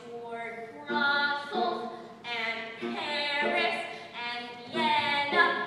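A girl singing solo into a microphone, in short sung phrases with held notes.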